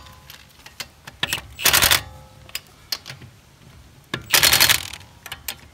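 Wheel nuts being run up tight with a wrench during a tyre change: short bursts of rapid clicking, the two loudest about a second and a half and four seconds in, with single clicks between.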